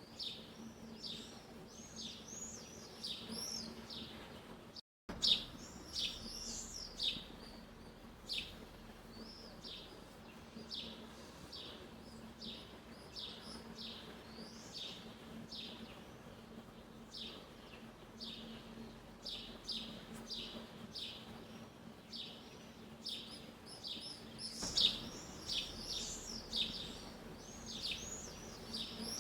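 Songbirds chirping and calling, a dense run of short high notes several a second, with a faint steady low hum underneath. The sound drops out for an instant about five seconds in.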